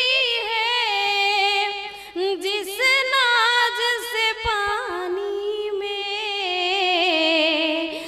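A woman singing a verse of her poem unaccompanied, holding long drawn-out notes with a wavering vibrato and sliding ornaments.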